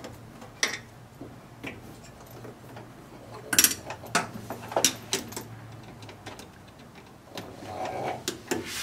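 A screwdriver working a worm-drive band hose clamp on a brake master cylinder's rubber reservoir hose, taking it off: scattered light metallic clicks and scrapes, with the sharpest clicks coming about three and a half to five seconds in.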